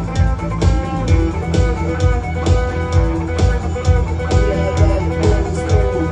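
Rock song played on guitar over a steady drum beat of about two beats a second, with a strong bass line.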